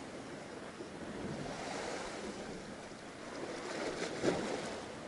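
Sea water washing against a small boat's hull, with wind on the microphone and a short knock about four seconds in.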